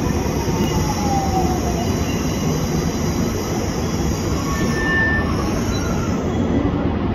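Shinkansen train running past at the station platform: a steady loud rush of wheel and rail noise, with a faint whine falling in pitch over the first second or so.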